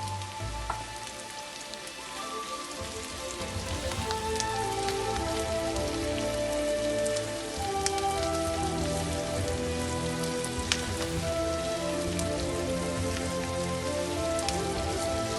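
Steady crackling sizzle, like food frying in a pan, under background music of held melodic notes.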